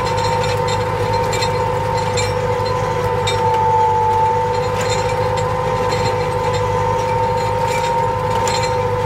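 Erkunt Kudret tractor's diesel engine running steadily under load while pulling a four-furrow plough through the soil, with a steady high whine over the engine and scattered light clicks and rattles.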